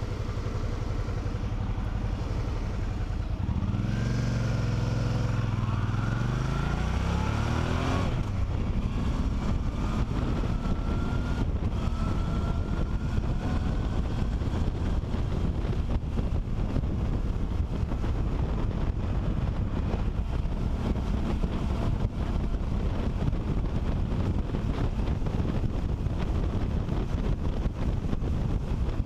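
Motorcycle engine pulling away and accelerating through the gears, its pitch rising about four seconds in and again a couple of seconds later. After that, wind noise on the helmet-mounted camera's microphone at road speed covers most of the engine.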